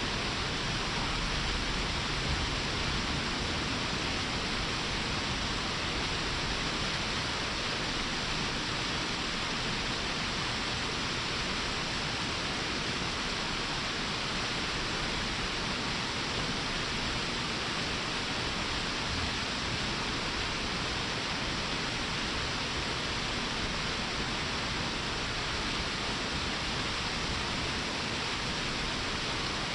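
Waterfall pouring: a steady, even rush of falling water that does not change.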